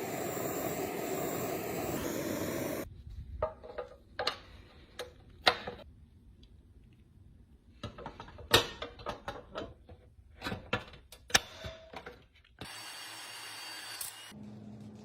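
Irregular sharp clicks and light knocks of small metal toy-truck parts being handled and worked, between stretches of steady noise from a tool at the start and near the end.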